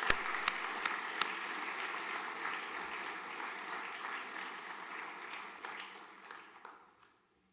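Audience applauding: a dense clatter of clapping with a few sharp, loud claps near the start, thinning out and dying away shortly before the end.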